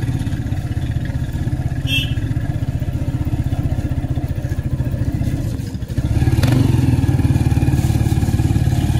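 Small motorcycle engine of a Philippine tricycle (motorcycle with sidecar) running steadily under way. It dips briefly just before six seconds in, then picks up again louder, as with a gear change and acceleration.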